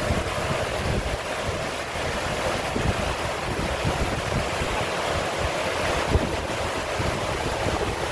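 Wind buffeting the microphone in uneven low gusts over a steady rushing noise.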